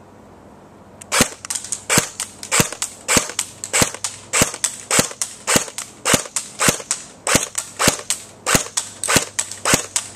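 Dboys MK16 (SCAR-L) electric airsoft rifle firing single shots in semi-automatic, starting about a second in: a steady series of sharp clicks, a little under two shots a second, each followed by fainter clicks.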